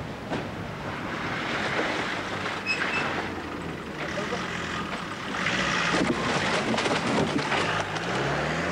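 Military Land Rover engine running as it drives along a rough track, growing louder with a rattling, crackling rush about halfway through, then revving up with a rising pitch near the end.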